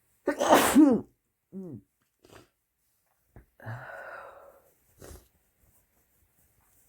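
A person sneezing once, loudly, the voiced cry falling in pitch, then a short voiced after-sound. A longer breath out follows a few seconds later, and a brief rush of breath near the end.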